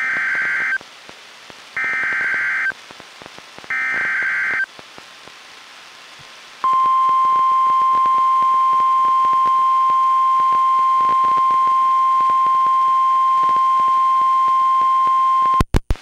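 NOAA Weather Radio emergency alert: three short screeching SAME digital header bursts about a second apart, then the steady 1050 Hz warning alarm tone held for about nine seconds, ending in a few quick clicks. Together they signal a Severe Thunderstorm Warning about to be read.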